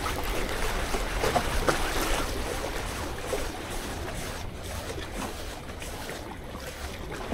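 Sea water washing among concrete tetrapods, with wind rumbling on the microphone. A few small handling knocks in the first couple of seconds as a spinning reel is taken in hand and wound in on a hooked fish.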